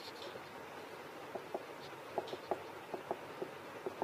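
Marker pen writing on a whiteboard: about ten short, irregular squeaks and taps of the pen tip as the strokes of a word are drawn, starting about a second and a half in.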